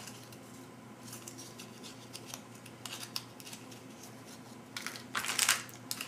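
Small MRE accessory packets of paper and plastic being handled: light rustling and ticking, then a louder stretch of crinkling about five seconds in.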